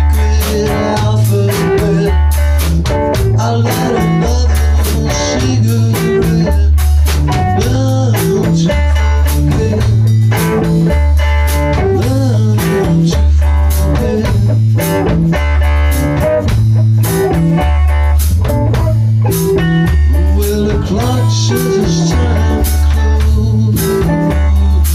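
Blues-rock band playing an instrumental stretch: electric guitar over a steady, repeating bass line and drum kit.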